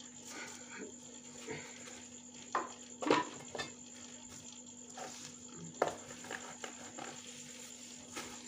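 A few sharp knocks and clatters of bowls, utensils and a plastic bag being handled during food preparation, the loudest about three seconds in. Under them runs a steady faint hum and a thin high tone.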